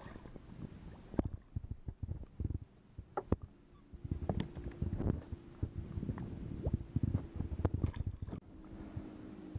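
Knocks, thumps and clicks of handling in a fishing boat while a white bass is being brought in on rod and reel. A steady low hum joins about a third of the way in.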